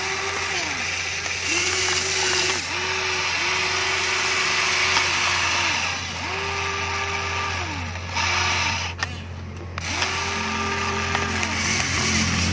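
Small electric gear motors of a toy remote-control excavator whirring in repeated short spurts as the arm and bucket move. Each spurt rises in pitch as the motor starts and drops as it stops, over a steady low hum.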